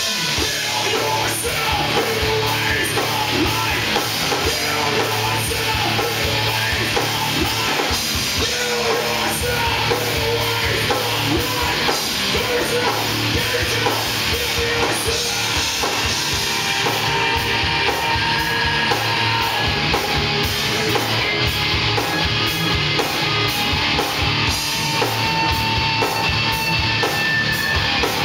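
Live rock band playing loud with electric guitars and a drum kit.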